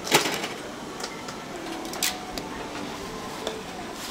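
Street-food stall background noise, steady throughout, with two short, sharp noises: one right at the start and one about two seconds in.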